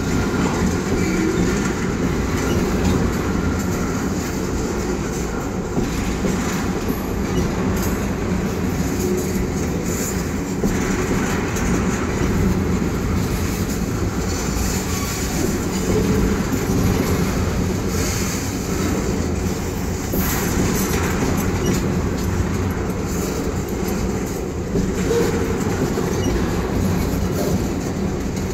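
Loaded ethanol tank cars of a freight train rolling slowly past, a steady rumble with the clatter of wheels over the rail joints.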